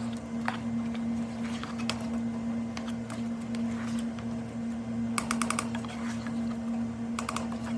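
Spoon stirring okra soup in a cooking pot: scattered clicks of the spoon against the pot, with a quick run of about five taps a little past halfway and a few more near the end, over a steady low hum.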